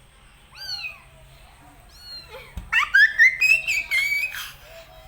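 A cat meowing: a short meow just under a second in, then a louder, longer run of high, wavering meows in the second half.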